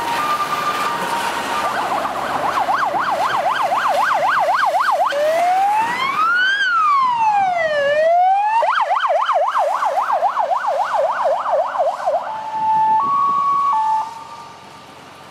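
Fire brigade vehicle's electronic siren cycling through its modes: a two-note hi-lo, then a fast yelp of about four sweeps a second, a slow rising and falling wail, yelp again and hi-lo again. It cuts off abruptly near the end, leaving low road and wind noise.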